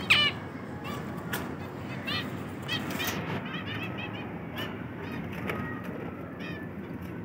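Finches in an aviary calling: a quick, irregular run of short chirps, the loudest right at the start, over steady low background noise.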